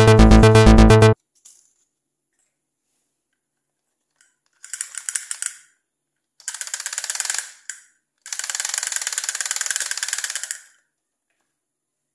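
Electronic background music cuts off abruptly about a second in. A Doraemon drumming toy's mechanism then clicks and rattles rapidly in three bursts, the last and longest lasting about two and a half seconds.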